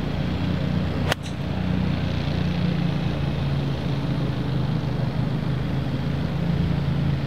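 An 8-iron striking a golf ball: one sharp click about a second in, over a steady low motor hum.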